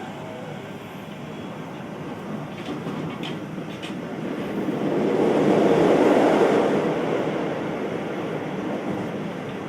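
Interior running noise of a Keio new 5000 series electric train at speed: steady wheel-on-rail rumble with a few clicks over rail joints. The noise swells louder for a few seconds around the middle, then eases back.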